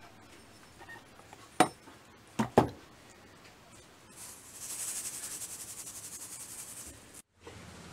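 Three sharp knocks as a steel hatchet head is set down into a plastic tub, then about three seconds of fine fluttering hiss as white powder is poured from a cup into the water.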